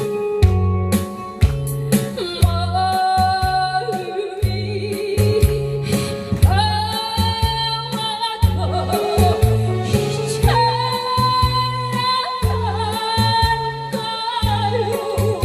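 A woman singing a Korean song over a recorded backing track, with a steady beat of bass notes and drums and a wavering vibrato in her voice.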